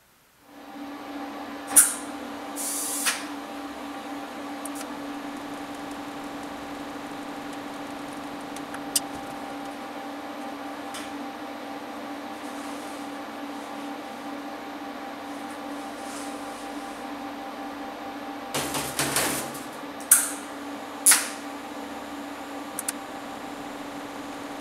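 Steady electrical hum of a TIG welding set running, with a few sharp high-pitched clicks and a short clatter of metal parts being handled about 19 seconds in.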